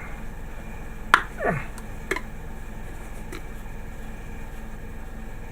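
A few sharp clicks from small plastic dropper bottles being handled while drops of flow improver and retarder go into a paint wash. The loudest click comes about a second in, followed at once by a brief falling squeak, with two fainter clicks later.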